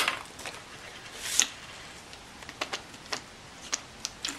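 Scattered light clicks and a brief rustle of small hard objects being handled: denture cleaning tablets going into a container of plastic keycaps.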